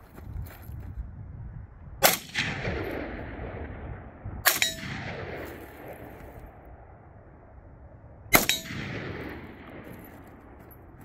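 Three rifle shots, about two, four and a half and eight seconds in, each followed by a long fading echo. A ring from the struck steel target follows at least one of them.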